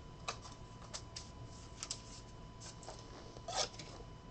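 Trading cards being handled: faint scattered rustles and light clicks of card stock and plastic, the loudest about three and a half seconds in.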